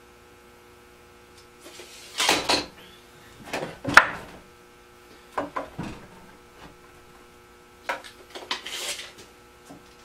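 A small wooden stool frame being handled and measured on a wooden workbench: scattered wooden knocks and scrapes with a sharp click about four seconds in, over a faint steady hum.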